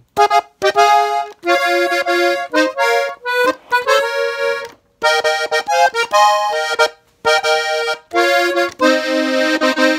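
Hohner Xtreme diatonic button accordion tuned in F playing a melody of short notes in phrases, breaking off briefly about five and seven seconds in.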